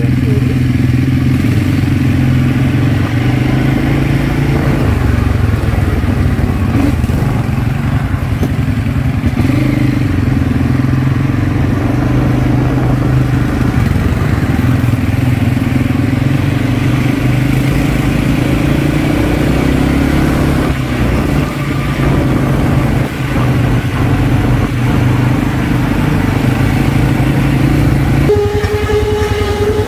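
ATV engine running steadily under a rider, its hum rising and easing a little as the throttle changes. About two seconds before the end a higher steady tone joins in.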